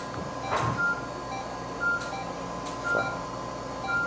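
Procedure-room equipment: short high electronic beeps repeat about once a second over a steady electronic tone, broken by a few brief knocks and rustles of handling.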